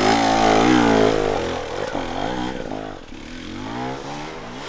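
Enduro dirt bike engine revving hard in repeated throttle bursts as it climbs a steep rocky slope. It is loudest in the first second and a half, then fades as the bike pulls away up the hill.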